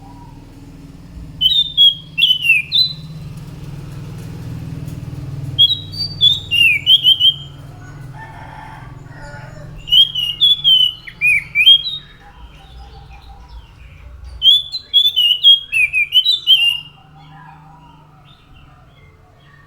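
A songbird sold as 'anis macan', a thrush, singing in four short bursts of quick, high, swooping whistled notes a few seconds apart. A faint low hum runs underneath.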